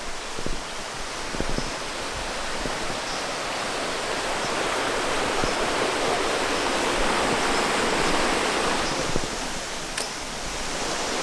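Steady rush of river water running over rocks, growing a little louder in the middle.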